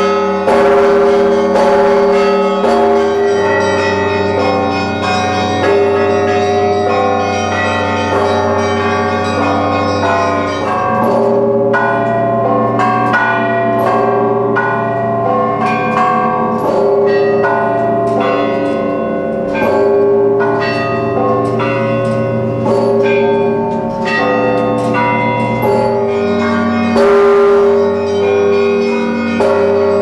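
Russian Orthodox church bells rung by hand from a belfry, each bell's clapper pulled by rope against the stationary bell. Smaller bells of several pitches are struck in a fast, continuous pattern over the ringing of a deep bell, with a heavier stroke about 27 seconds in.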